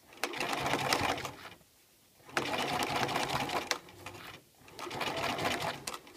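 Sewing machine stitching in three short runs with brief stops between them, topstitching the facing of a trouser zip fly down.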